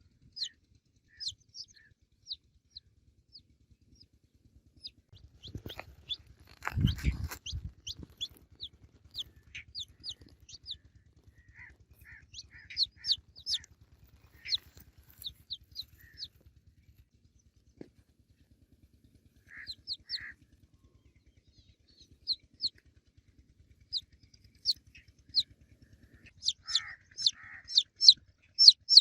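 Baby chicks peeping: many short, high, falling peeps, scattered at first and coming thick and fast near the end. About six seconds in, a brief low rustling thump is the loudest sound.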